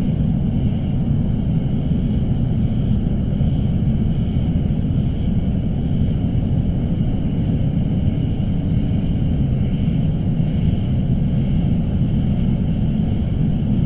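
Suspense sound-effect ambience: a steady low rumble with faint high tones wavering above it.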